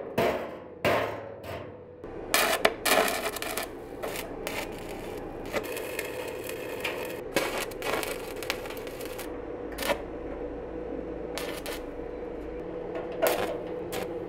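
Stick (arc) welding on a steel drum: the arc crackles and sizzles in irregular stretches that stop and restart as the rod is struck, over a steady hum. A few sharp metallic clicks come near the start.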